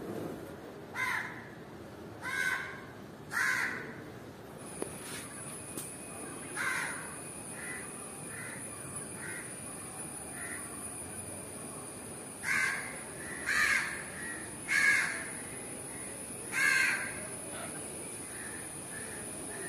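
A bird calling loudly and repeatedly: three calls near the start and four more in the second half, with fainter short calls in between. A thin, steady high-pitched whine runs underneath from about five seconds in.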